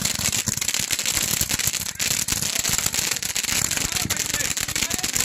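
Bundled hand-held firework tubes firing steadily: a dense, continuous stream of rapid pops and crackle as shot after shot launches.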